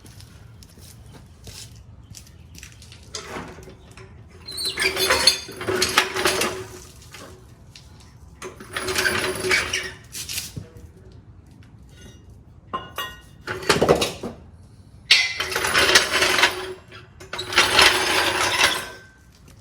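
Pneumatic impact wrench running in six bursts of about one to two seconds, with short pauses between, as lug nuts are driven on to mount a wheel.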